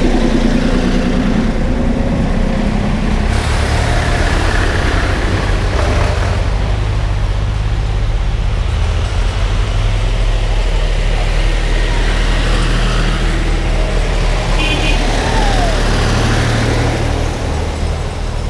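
Tractor engines running as tractors drive past one after another. A yellow backhoe loader goes by close at the start, and later a green John Deere tractor comes up the lane. The sound changes abruptly about three seconds in.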